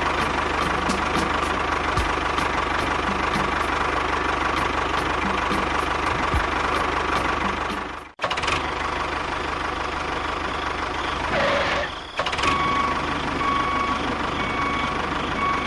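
A machine running steadily like an engine, with a constant whine and regular ticking. It cuts out abruptly about eight seconds in and starts again. Near the end a beeping tone sounds on and off, about five times.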